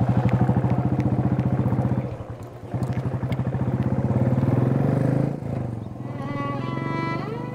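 Royal Enfield Bullet single-cylinder motorcycle engine thumping as the bike pulls away, dipping briefly about two seconds in and then building again before it cuts off suddenly. Violin music comes in near the end.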